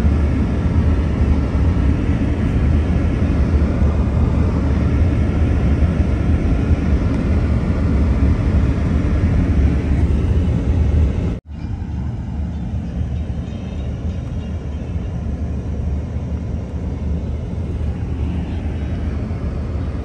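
Car cabin noise while driving on snow-covered roads: a steady low rumble of engine and tyres. It drops out abruptly about eleven seconds in, then carries on a little quieter.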